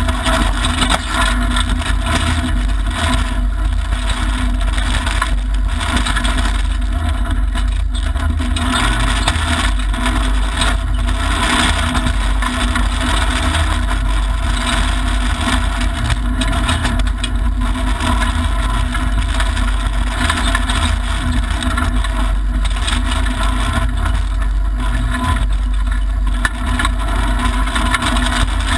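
Mitsubishi Lancer Evolution IX rally car heard from inside the cabin, its turbocharged 2.0-litre four-cylinder engine running under load, with steady tyre and gravel noise from driving fast on a dirt road.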